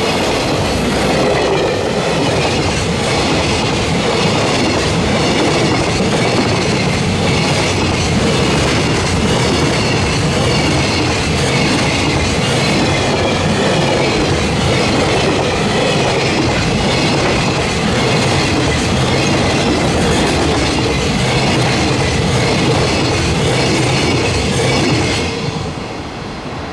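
Container wagons of a long freight train rolling past at speed: a steady, loud rush of steel wheels on rail. It falls away about 25 seconds in as the end of the train clears.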